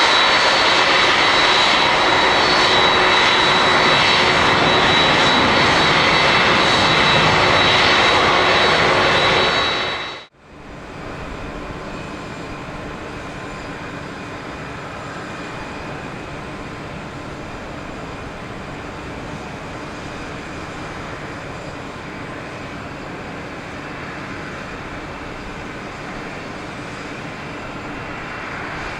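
Jet engines of a Boeing 747-400D airliner running loud and steady, with a high whine over the rush. About ten seconds in, the sound drops out for a moment and returns much quieter, the engines' whine and rush still steady.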